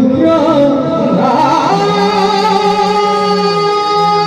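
A man singing loudly into a microphone in Assamese Bhaona devotional song with khol drums, his voice moving in the first second or so and then holding one long steady note through the rest.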